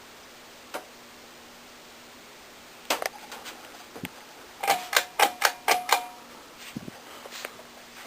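A run of sharp mechanical clicks: a single click, a small cluster, then six loud clicks at about four a second with a faint ringing tone, trailing off into softer clicks.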